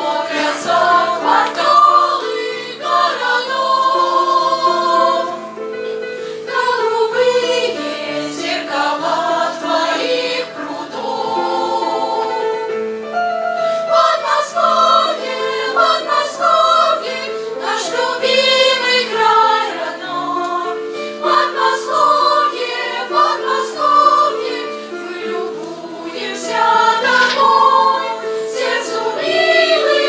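Children's choir singing a Russian song, several voices in harmony, without a break.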